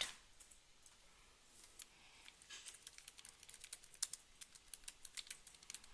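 Faint computer keyboard typing: a quick, irregular run of key clicks starting about a second and a half in.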